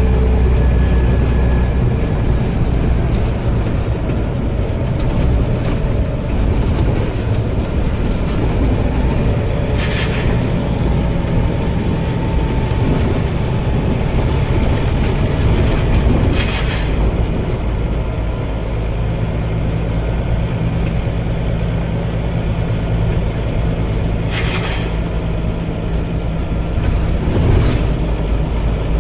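Scania OmniCity bus running steadily, with four short, sharp hisses of escaping air spread through it several seconds apart. These hisses are the loud 'sneezing' caused by worn-out air tanks.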